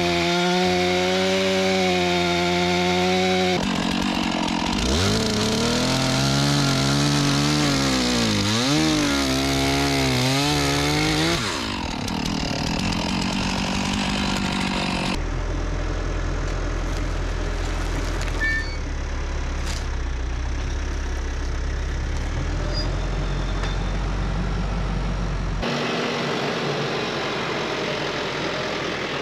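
A chainsaw running and bucking pine logs, its pitch dropping and rising as the chain bogs and frees in the cut. After about fifteen seconds a deeper, steady engine rumble takes over, typical of a tractor or sawmill engine running.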